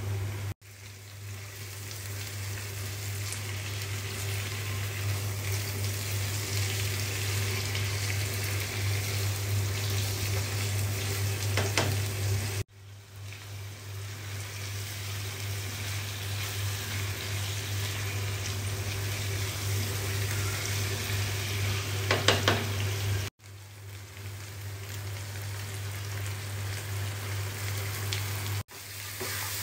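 Chicken pieces and onions frying in hot oil in a wok, a steady sizzle with a few clicks of a spatula against the pan. The sizzle breaks off abruptly a few times and builds back up.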